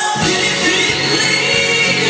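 Live pop music from a concert stage: a singer and band through the PA, recorded from within the crowd. The band's beat kicks in just after the start, under a long held high note.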